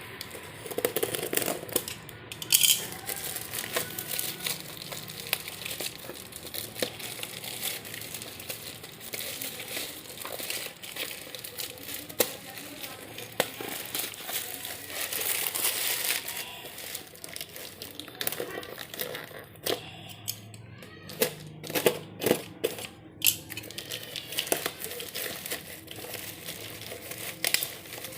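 Package being unwrapped by hand: irregular rustling of the wrapping with many sharp clicks and snaps.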